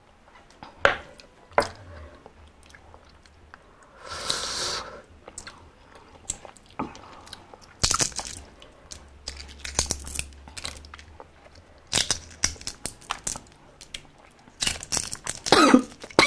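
Close-up eating sounds of balut: a few sharp clicks, chewing and crunching, then a dense crackle of eggshell being peeled near the end.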